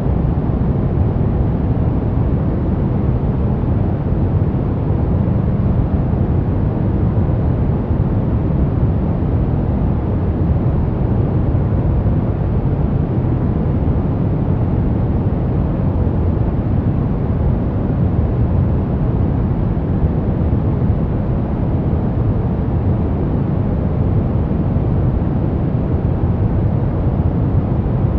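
Steady, unchanging baby-sleep white noise, a deep hiss with most of its weight in the low end and little treble.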